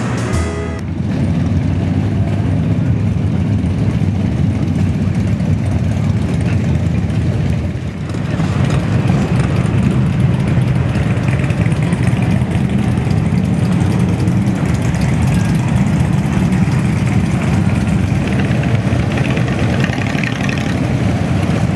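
Steady, loud engine rumble from motor traffic, running without a break apart from a brief dip about eight seconds in. The tail of some music ends about a second in.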